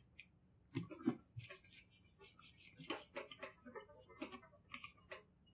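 Faint scattered clicks and scrapes of a small hand tool poking and rubbing inside the open steel receiver of a Winchester Model 62 pump-action .22 rifle while it is cleaned.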